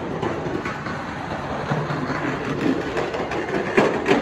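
Busy metro station concourse din: a steady rumbling noise, with two sharp knocks close together near the end.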